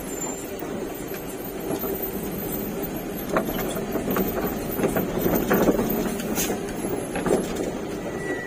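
A vehicle running with a steady rumble, joined in the middle by a series of sharp knocks and clatters.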